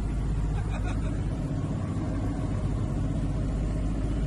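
Steady drone of a Grumman HU-16 Albatross's twin radial engines in flight, heard from inside the aircraft.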